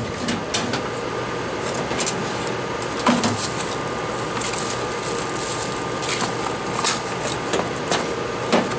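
Small clicks and knocks of tools and a cardboard parts box being handled in an open drawer, a few scattered taps several seconds apart, over a steady background hum.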